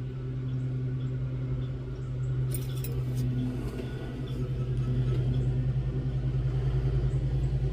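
Steady hum and low rumble of a jeweler's soldering torch running, a little louder about halfway through, with one brief click about two and a half seconds in.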